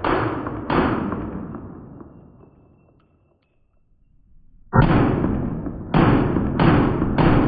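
Shots from a compensated Staccato pistol: two shots under a second apart, the second dying away slowly over about three seconds. Then, starting abruptly about five seconds in, four more shots roughly one every half second to second.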